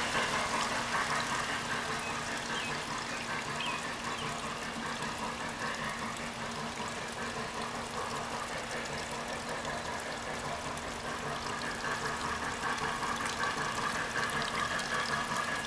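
O scale model freight train of hopper cars rolling steadily along the track, with water trickling from a small pond waterfall and a faint low hum underneath.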